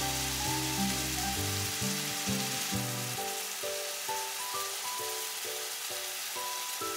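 Ground pork and onion sizzling steadily as they fry in a frying pan, with soft background music of held notes over it.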